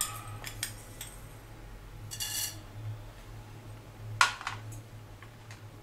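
A steel spoon clinks against a small steel bowl and the rim of a nonstick kadai as whole coriander seeds are spooned into the dry pan. There are a few light clicks, a ringing clink about two seconds in, and a sharp tap just after four seconds, over a low steady hum.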